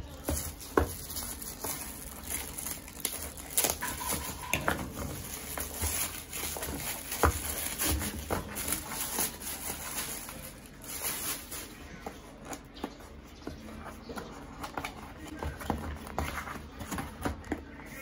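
Plastic packaging rustling and crinkling as a small cardboard box is pulled out of it and handled, with irregular taps and knocks of the box against a hard surface.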